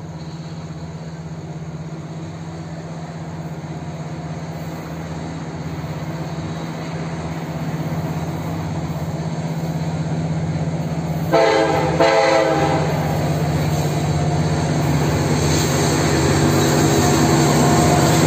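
Approaching freight train led by EMD SD70ACe diesel-electric locomotives with 16-cylinder two-stroke engines: a steady engine drone grows gradually louder, with two short air-horn blasts a little past the middle.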